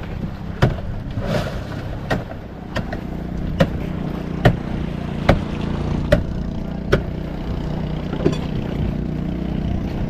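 Fishing boat's engine running steadily, with sharp knocks about once a second.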